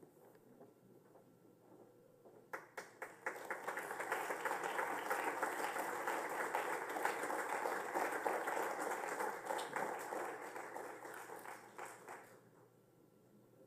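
Audience applauding in a hall: a few scattered claps start about two and a half seconds in, build quickly to full applause, and die away about a second before the end.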